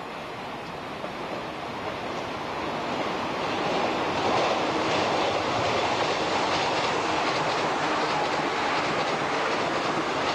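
JNR cream-and-red limited-express electric train passing at speed, its wheels running over the rails with a regular clicking. The sound builds over the first four seconds as it approaches, then stays loud as the cars go by.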